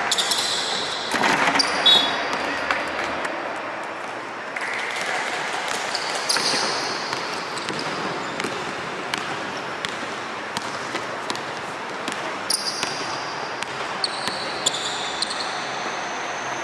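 A basketball being dribbled on a hardwood court in a large, empty sports hall: a run of irregular bounces.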